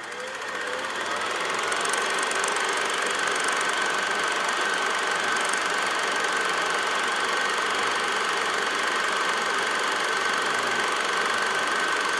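Film projector running steadily, a mechanical whir with a steady high whine, fading in over the first couple of seconds.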